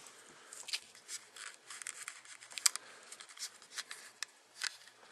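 Light, irregular plastic clicks and scratches from a small wireless computer mouse being handled at its open battery compartment.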